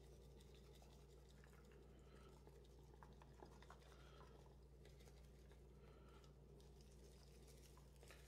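Near silence: faint scratchy patter of grated Parmesan cheese being shaken from a Kraft plastic shaker onto lasagna sauce, over a low steady hum.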